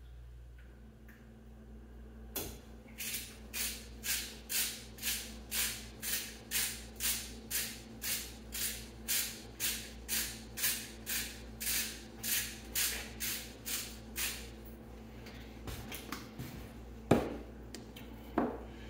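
A spoon stirring soup in a stainless steel pot, scraping in an even rhythm of about two strokes a second, then stopping. A couple of sharp knocks near the end.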